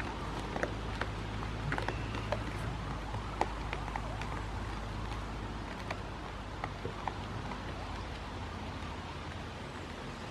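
Goats moving on rocks and dry leaves: scattered light clicks and rustles, thickest in the first few seconds and thinning out later, over a steady low outdoor rumble.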